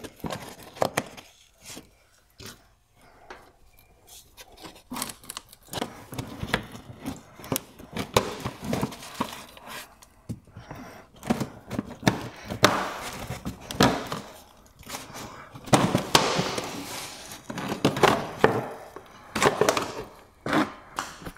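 Scattered plastic clicks, knocks and scraping as push-in plastic clips are pried out and the plastic inner wheel-arch liner is worked free. The handling is sparse at first and busier and louder in the second half.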